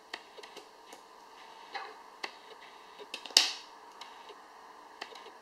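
Small plastic clicks and taps as black LEGO Technic pins are pressed into a transparent resin 3D-printed panel, with one louder click about three and a half seconds in.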